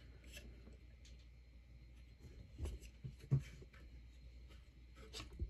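Faint handling of a plastic LEGO walker: light rustles and a few small clicks as its ratcheted leg joints are bent into a pose, the strongest click a little past three seconds in.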